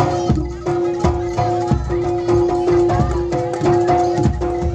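Live traditional Indonesian ensemble music: hand drums beating a steady rhythm under a held melody line that steps between a few notes.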